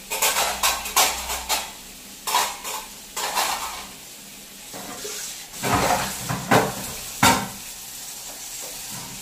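Dishes and utensils clattering against a wire dish rack and a steel sink, then a few loud clanks of a pot being rinsed and handled under a running tap, with the faint steady hiss of the tap water behind.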